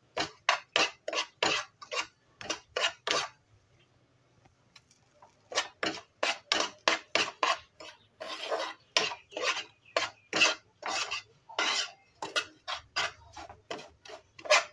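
A spatula scraping back and forth across a coated frying pan, stirring semolina as it roasts, at about three strokes a second. The stirring stops for about two seconds a few seconds in, then starts again.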